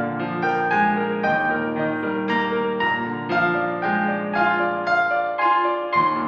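Solo piano playing a slow melody over held chords, with new notes struck every third to half second.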